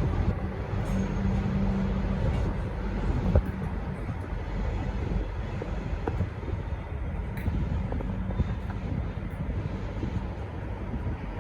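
V/Line N-class diesel locomotive and its train rumbling steadily as it pulls out, with a few short clicks scattered through.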